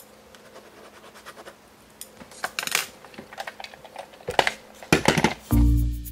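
Pens and felt-tip markers scribbling on journal paper in short scratchy strokes, a few louder ones about four to five seconds in. Music begins near the end.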